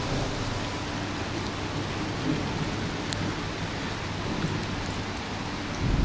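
Steady rain falling, an even hiss with no break.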